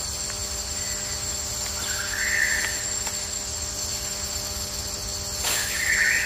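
Steady jungle ambience: a constant high hiss with a steady hum and low rumble, and a short call about two seconds in and another near the end.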